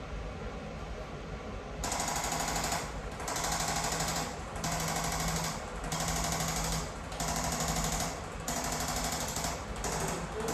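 Handheld electric percussion instrument buzzing against a patient's back in repeated bursts about a second long with short pauses, starting nearly two seconds in, giving light rapid impulses to loosen the back muscles.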